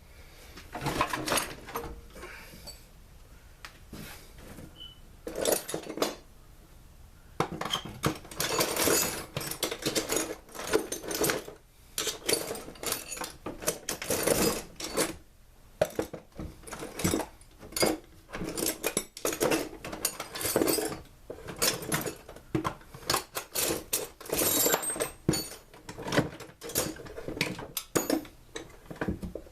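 Irregular clinking, scraping and rattling of metal hand tools and parts being worked on a two-stroke backpack blower during teardown, in uneven clusters with short pauses.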